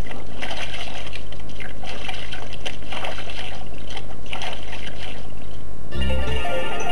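Water splashing and sloshing in a basin as hands wash in it, in uneven bursts. Music comes in near the end.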